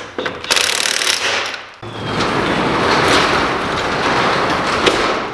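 Impact wrench hammering on lug nuts in two runs: a short one about half a second in and a longer one from about two seconds on.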